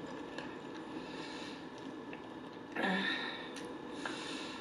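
A person chewing a mouthful of burger with closed lips, with a few faint mouth clicks. About three seconds in comes a short nasal sound.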